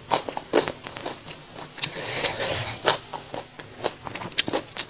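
A person chewing a mouthful of raw lalapan, the raw greens and young jengkol eaten Sundanese-style, with irregular crisp crunches.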